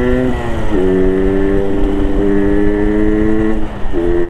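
Yamaha RX King's 135cc two-stroke single on its stock exhaust, running under way. The engine pitch falls sharply about a second in, holds steady, and falls again near the end. It picks up briefly before the sound cuts off suddenly.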